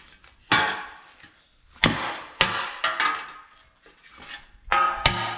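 Hammer blows on a damaged salt spreader, about six irregular strikes, the last two ringing, as a pulled-in section is worked back into shape.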